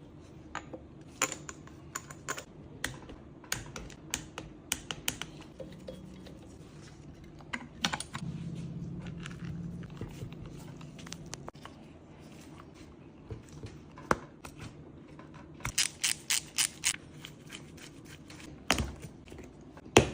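Irregular sharp clicks and taps of hand tools and metal parts being handled during engine assembly. There is a quick run of clicks about sixteen seconds in, and a louder knock near the end.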